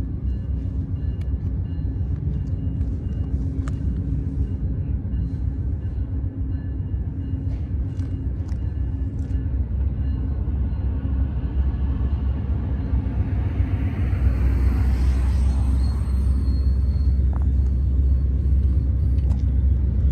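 Low, steady rumble of a diesel train approaching out of sight, growing louder about two-thirds of the way through.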